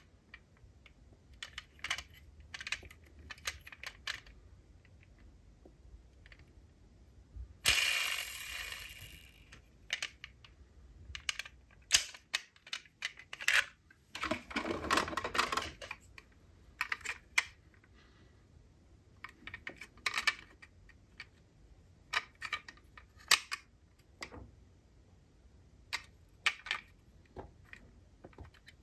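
Small hard clicks and clacks of die-cast toy cars being handled and set down, scattered irregularly, with two longer rustles about 8 and 15 seconds in.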